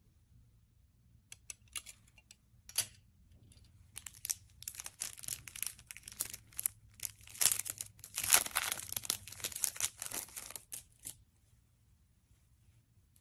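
Thin plastic bag crinkling and crackling as it is opened by hand and a cleaning cloth is pulled out of it. A few scattered crinkles come first, then dense crackling for about seven seconds that stops suddenly near the end.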